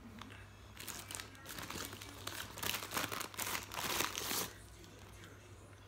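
Takeaway food packaging being handled and crumpled, a run of crinkling that starts about a second in and stops about a second before the end.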